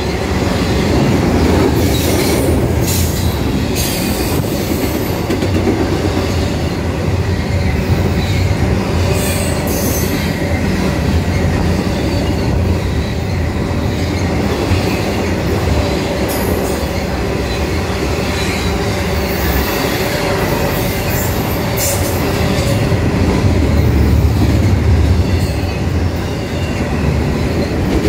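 Norfolk Southern intermodal freight train's double-stack container cars rolling past: a loud, steady rumble of steel wheels on rail, with brief high-pitched wheel squeals several times.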